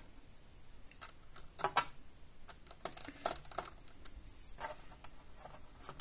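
Small screwdriver backing a screw out of a laptop's plastic base panel: faint, irregular clicks and light scrapes of the tool turning in the screw head.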